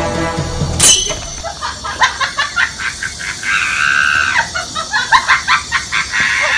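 A shrill voice screaming in a quick string of short cries, with one longer high scream about halfway through; a sharp, loud hit about a second in.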